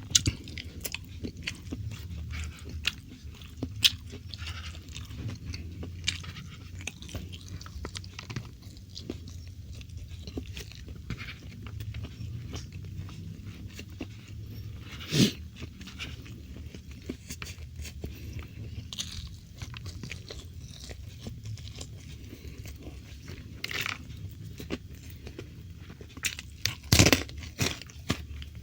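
A person chewing and crunching crispy food close to the microphone: many small crackles throughout, with a few louder crunches about halfway through and near the end.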